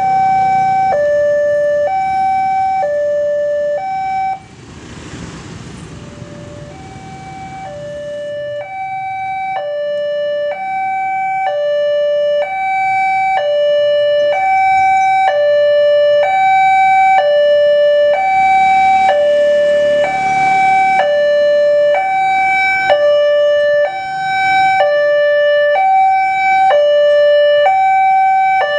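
Electronic warning alarm of an Indonesian railway level crossing ringing: a high and a low tone alternate at an even pace of roughly one change per half second. About four seconds in it drops quieter for a few seconds, then grows louder again. A brief rush of noise passes twice beneath it.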